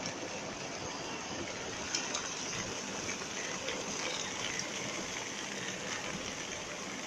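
Heavy rain pouring down with water rushing off like a waterfall, a steady even hiss. A brief tap about two seconds in.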